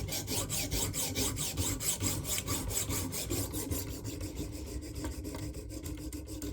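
Sharpening stone on the guide rod of a KME guided sharpener rasping along the edge of a flexible fillet knife in quick, even strokes, several a second. The edge is being worked to raise a burr along its length.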